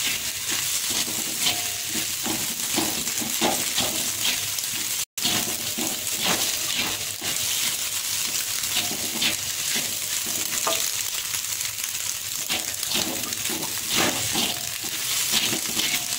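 Scrambled egg, chillies, shallots and garlic sizzling in oil in a metal wok while a silicone spatula stirs and scrapes, with many short scraping strokes over a steady hiss. The sound cuts out for an instant about five seconds in.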